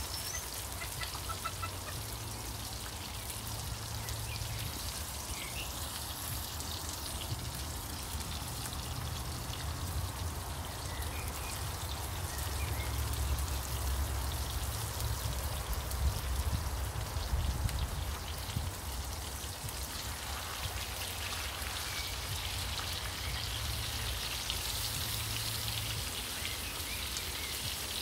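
Pork sirloin steaks brushed with bacon mayonnaise sizzling in a cast-iron skillet, a dense, steady crackle, over a low rumble underneath.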